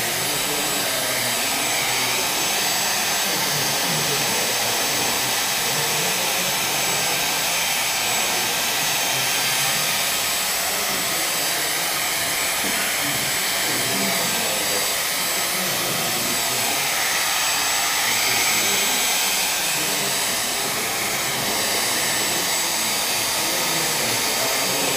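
Hair dryer blowing steadily, drying wet watercolour paint on paper.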